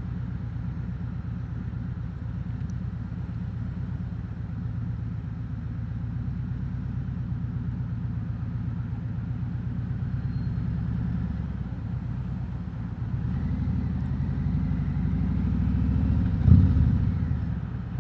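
Harley-Davidson Road King Special's V-twin engine running under way, a steady low rumble. Near the end it builds up in level to a brief peak, then eases off.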